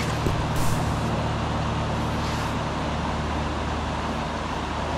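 A steady low motor-like hum over a constant noisy hiss, unchanging throughout.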